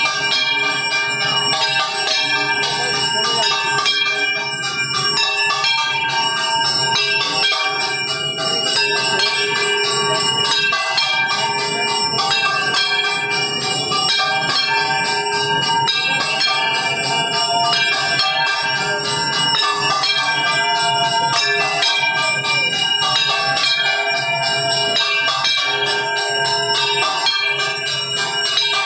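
Temple bells struck rapidly and without pause during evening aarti, a dense, steady clangour of many overlapping ringing tones.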